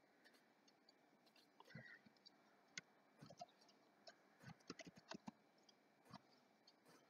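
Faint clicks of a computer mouse and keyboard over near silence, with a quick run of keystrokes about four and a half to five seconds in.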